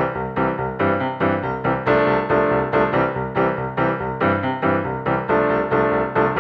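Background music: piano or electric-piano notes played in a quick, even stream.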